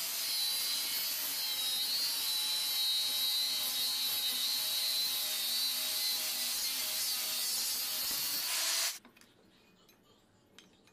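Angle grinder with a cut-off disc cutting through steel angle iron: a loud, steady high whine over a hiss. It stops abruptly near the end.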